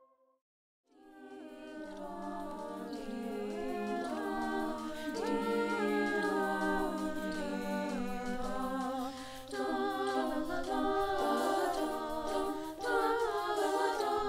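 High school choir singing a cappella in soft held chords, with several voices in harmony. It comes in after about a second of silence and slowly grows louder.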